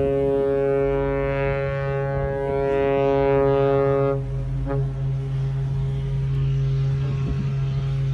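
Ship horns sounding together: one horn blast cuts off about four seconds in and is followed by a short toot, while a deeper horn holds a steady note throughout.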